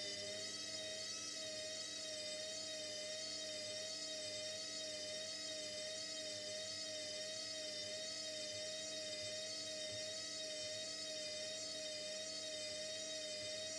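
Indesit washing machine spinning at top speed: a steady motor and drum whine with several high tones that waver slightly and evenly.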